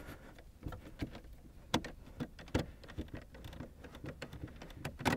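Faint, irregular clicks and small taps of a socket driver turning out a small 7mm bolt from a plastic dashboard panel.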